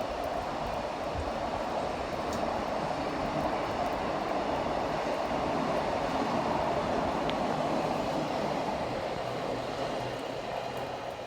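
Freight train passing, with a steady rolling rumble from the wagons on the rails that fades near the end.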